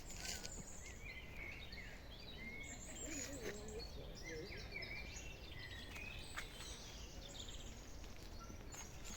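Songbirds singing: a run of quick chirps and warbles that fades near the end, over steady low outdoor background noise, with a few soft clicks.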